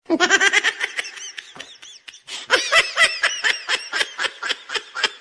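High-pitched, rapid laughter: two runs of quick, arching syllables, about four or five a second, with a short break about two seconds in.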